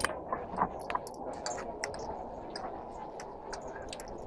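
Indistinct murmur of a gathered crowd, with scattered sharp clicks and taps, two louder ones near the start.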